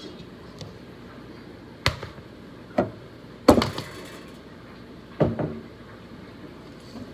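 Four sharp knocks and clatters of kitchenware being handled and set down on a counter. The loudest, about three and a half seconds in, trails off in a short rattle.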